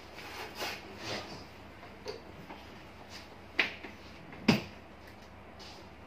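Soft rustling and shifting as a person settles into a chair, then two sharp knocks a little under a second apart, the second the louder.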